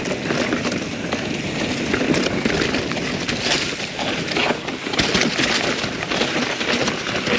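Mountain bike riding fast down a rough trail: tyres rolling and crunching over dirt, roots and rocks, with a steady clatter of the bike rattling and many sharp knocks from the wheels hitting obstacles.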